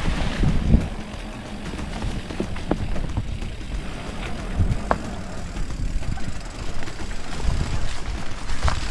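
Mountain bike rolling down a dirt and gravel downhill trail: steady tyre rumble and wind rumbling on the microphone, with a few sharp clicks and knocks from the bike going over rough ground.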